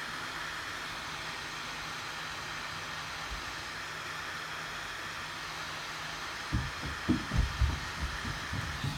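Heat gun running steadily, a fan-driven hiss of hot air with a low motor hum, softening the adhesive on the phone. For the last two seconds or so, a series of irregular low knocks and bumps from handling sits over it.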